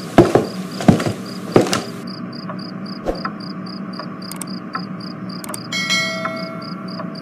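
Crickets chirping in a steady rhythm, about four chirps a second, over a low, steady night ambience. In the first two seconds there are three heavy thumps about 0.7 s apart. Near six seconds there is a brief bright ringing.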